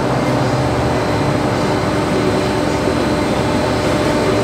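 Forklift engine running steadily, a constant drone with a steady hum in it.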